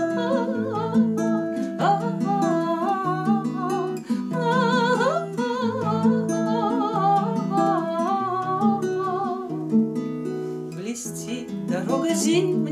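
A woman singing in Russian with vibrato to her own acoustic guitar. The guitar plays a steady accompaniment of alternating bass notes and chords.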